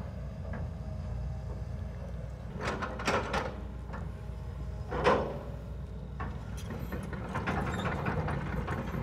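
Tracked excavator's diesel engine running steadily under load, with metal clanks and the scrape of its bucket pushing and smoothing loose dirt. A few sharp knocks come a few seconds in, the loudest about five seconds in, and a longer rattling scrape follows near the end.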